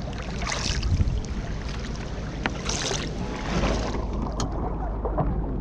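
Kayak paddling on a canal: paddle strokes splashing in the water, two of them standing out about two seconds apart, over a steady low wind rumble on the action-camera microphone.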